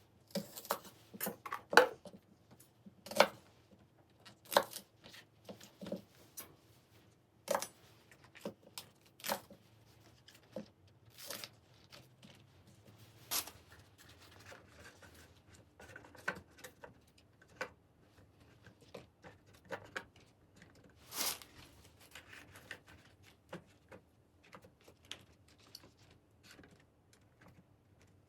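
Plastic organiser bins, containers and packaged food being handled and set down in a refrigerator: irregular clicks, knocks and light rustling, with a faint steady hum under them.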